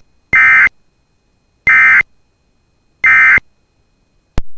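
Emergency Alert System end-of-message data tones: three identical short bursts of buzzy, warbling digital tones about 1.3 seconds apart, marking the close of the alert. A brief click follows near the end.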